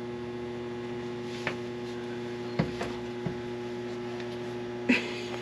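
Steady electrical hum from equipment in the submarine compartment, with a few faint clicks and a louder knock near the end.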